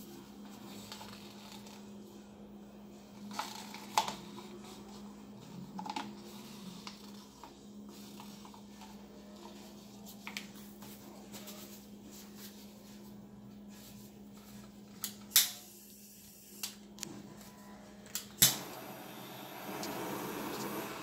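Light handling clicks and taps of a plastic pour cup and items on a tabletop, a few sharp taps scattered through, over a steady low hum. A louder steady rushing noise comes in near the end.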